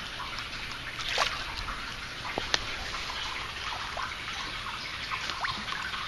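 Hooked crucian carp splashing at the water's surface as it is drawn in to the bank, with a few sharp ticks among the water noise.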